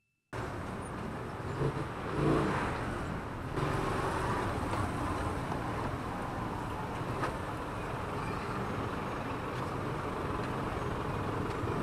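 Kawasaki Fury 125 single-cylinder motorcycle riding slowly through congested city traffic: steady engine and road noise with surrounding car traffic, starting abruptly just after the beginning and swelling briefly about two seconds in.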